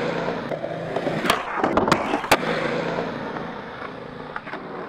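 Skateboard wheels rolling on concrete, with a few sharp clacks between one and two and a half seconds in, the rolling fading as the board moves away.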